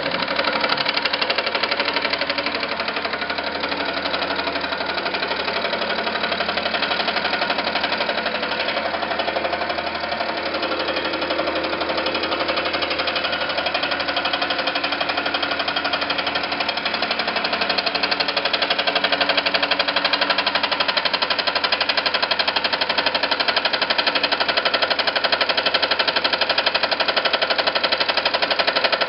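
Milling machine cutter taking a light 0.020-inch cut across metal pawls held on a magnetic chuck, the table fed slowly by hand. A steady, rapid rattle of the cutter in the metal, a little louder in the second half.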